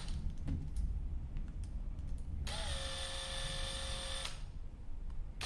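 An electric drill/driver motor runs for a little under two seconds, starting about two and a half seconds in. Its whine settles slightly in pitch after starting, then holds steady until it stops.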